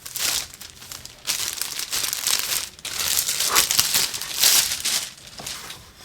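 Plastic wrapping crinkling and rustling as it is pulled off a plaque, in irregular spells that die away about five seconds in.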